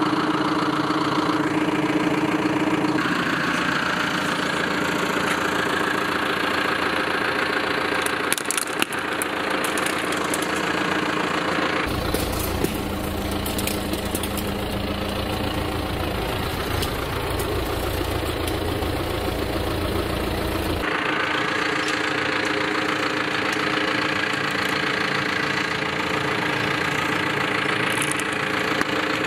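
A John Deere tractor's diesel engine running steadily at idle, its tone shifting abruptly a few times. There is a short cluster of clicks about eight and a half seconds in.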